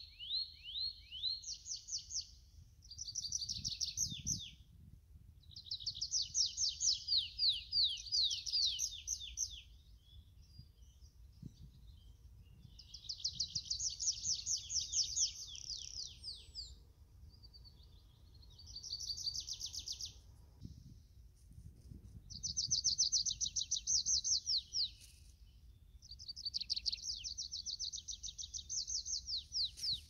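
Tree pipit singing: about six phrases a few seconds long, each a fast run of repeated high falling notes, with short pauses between them.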